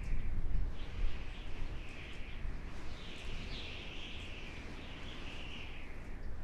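Outdoor nature ambience: a steady low rumble with patches of high chirping that come and go every second or so.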